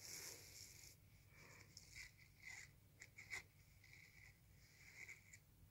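Faint rustling and scratching of hands smoothing and handling a cotton T-shirt's fabric and collar, with a few small clicks about three seconds in.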